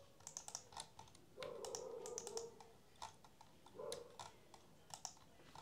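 Faint, scattered clicks of a computer keyboard and mouse being worked at a desk, with a soft, longer sound about a second and a half in and again near the end.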